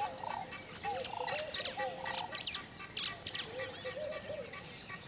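Field recording of the African savanna played back over a sound system: several birds chirping and warbling over a steady high-pitched insect drone, with a quick run of repeated chirps and a few sharp falling calls in the middle.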